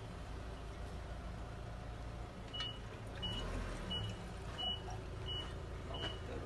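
A steady low rumble, with a short high electronic beep at one pitch joining a little over a third of the way in and repeating about every two-thirds of a second.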